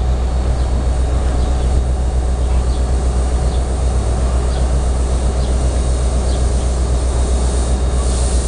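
Diesel-powered commuter train standing at the platform with its engine idling: a steady low rumble, with faint high ticks roughly once a second.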